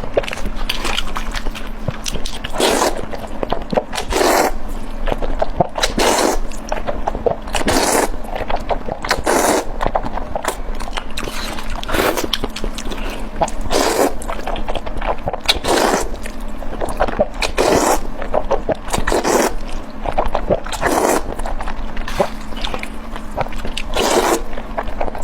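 Close-up eating sounds: food being bitten and chewed, with a sharp crunch roughly every one and a half to two seconds.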